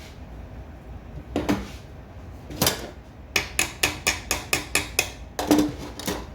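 A run of sharp taps or knocks: two single ones, then a steady string of about four a second, then two more near the end.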